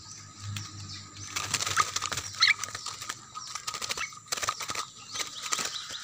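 Weaver birds fluttering and scrabbling inside a wire-mesh cage, with irregular rustles and taps and two short chirps about two seconds in.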